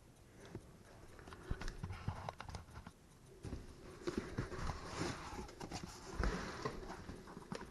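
Packaging being unwrapped and handled: plastic bubble wrap crinkling and rustling, with irregular knocks and taps against the box. The rustling gets busier from about three and a half seconds in.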